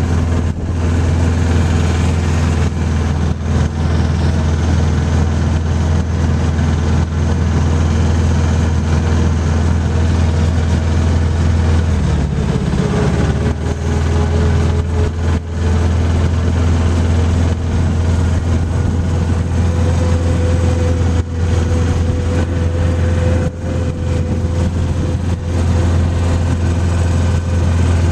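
Engine of a loud ranch vehicle running steadily under way, with a brief change in its sound about twelve seconds in and a slight rise in pitch toward the end.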